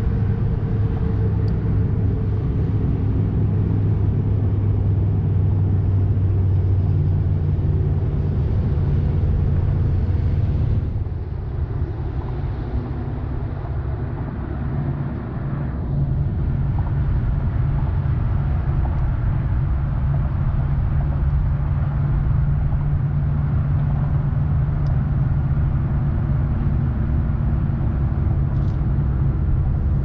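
Bow-mounted electric trolling motor running with a steady low hum. It drops in level about eleven seconds in and comes back at a slightly higher pitch some five seconds later, as the motor's speed is changed.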